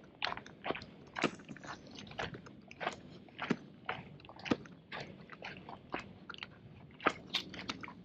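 Footsteps crunching on a dry dirt hiking trail, about two steps a second.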